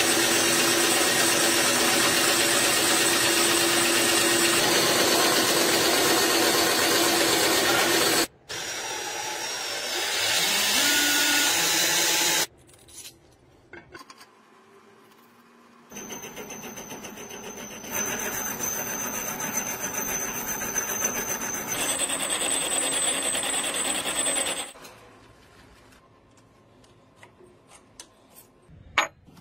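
Small bench saw with a thin vertical blade cutting through a brass plate, a loud steady noise that cuts off after about eight seconds. Two shorter runs of power tools follow: one with a motor rising in pitch, and later one with a steady high whine.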